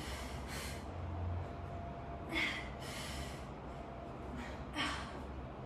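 Heavy breathing from exertion during a hard core exercise: three forceful exhales, about two seconds apart, over a low steady hum.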